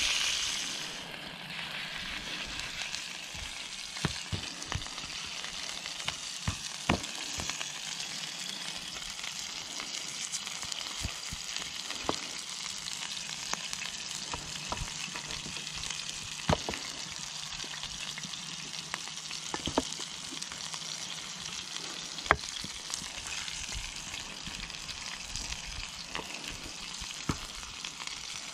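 Minced-meat kebabs sizzling in a cast iron pan. The sizzle is loudest for about the first second, then settles to a steady lower level. Scattered sharp pops and clicks run through it.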